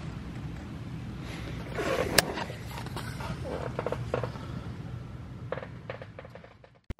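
Metal clinks and scrapes of a hand tool and parts against a bare engine block's main bearing caps during crankshaft removal, over a steady low hum. There is one sharp click about two seconds in, and the sound fades out near the end.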